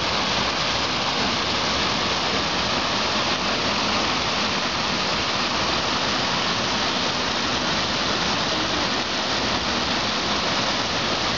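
Water pouring over a small concrete weir and splashing into the frothing pool below, a steady, even rush.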